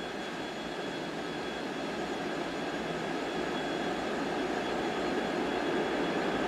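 A train approaching, its steady rumble growing gradually louder, with a faint steady high whine running over it.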